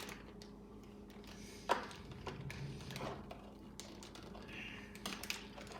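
Faint scattered clicks and knocks of meat grinder parts being handled and fitted together, the loudest about two seconds in.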